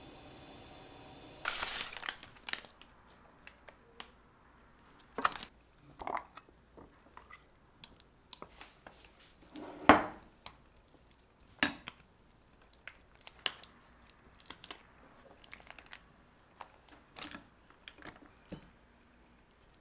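Kitchen handling sounds from mixing a spring-roll filling with a spoon and setting out rice paper: scattered knocks and clicks of the spoon against the bowl, with soft crinkling and squishing between them. A brief rustling burst comes about a second and a half in, and the loudest knock about ten seconds in.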